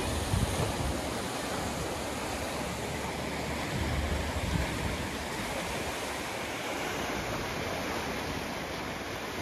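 Ocean surf breaking and washing over coastal rocks: a steady rush of foaming water, swelling near the start and again about four seconds in.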